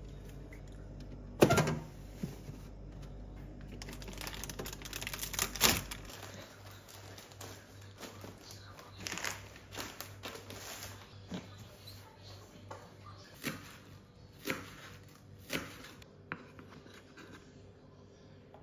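Handling of food packets and plastic storage containers: a sharp knock about a second and a half in, crinkling of plastic packets, and light clicks and taps of plastic boxes and lids. A low hum runs underneath and stops about six seconds in.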